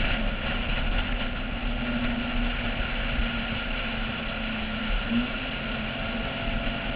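Steady wind rush and running noise on a roof-mounted action camera of a Porsche 996 at track speed, with the car's engine heard faintly beneath as a level drone.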